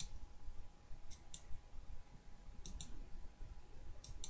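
Computer mouse clicking: three pairs of quick sharp clicks, about a second and a half apart.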